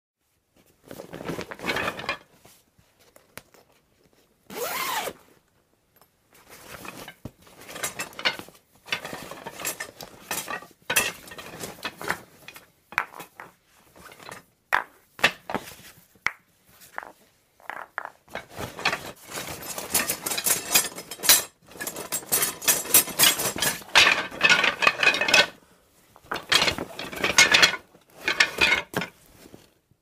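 Rummaging through a croquet bag: the contents rustle, knock and clink against metal in irregular bursts with short pauses, the handling busiest in the second half.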